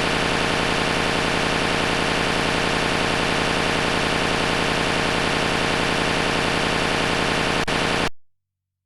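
A loud, harsh, steady buzzing noise that cuts off abruptly near the end.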